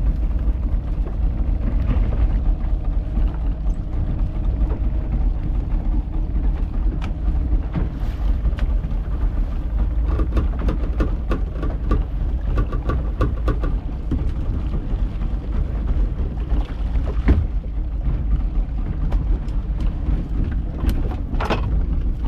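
Steady low rumble of a small fishing boat at sea, wind on the microphone and the boat's outboard motor, with scattered clicks and knocks as a skipjack tuna is hauled in by hand and brought aboard.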